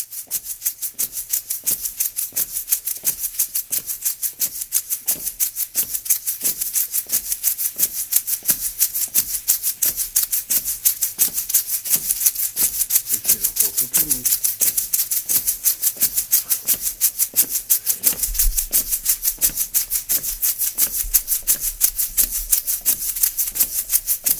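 A shaker rattled in a fast, even rhythm, without a break.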